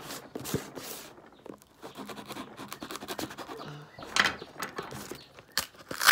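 A knife scraping and cutting at the packing tape on a cardboard mailing box, with scratchy strokes and a few sharp knocks and clatters as the box is handled and turned over.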